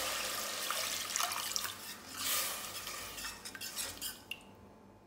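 Water poured into a steel pressure cooker onto hot spice paste fried in coconut oil, with a second pour about two seconds in. Then a steel spoon stirs the liquid and clinks against the side of the pot.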